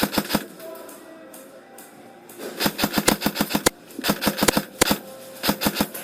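Airsoft electric rifle firing full-auto bursts, a rapid clatter of about ten shots a second: a short burst ends just after the start, then three more bursts come in the second half. Background music plays underneath.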